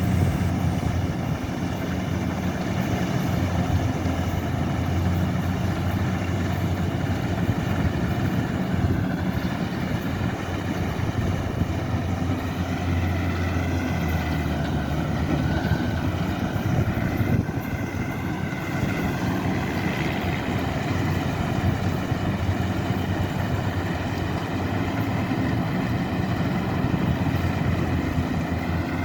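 Rice combine harvester's diesel engine running steadily under load, with a wavering higher whine above the engine hum.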